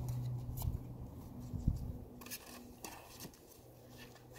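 Faint rustling and light scattered clicks of puppies moving about on grass, over a steady low hum, with a soft thump about one and a half seconds in.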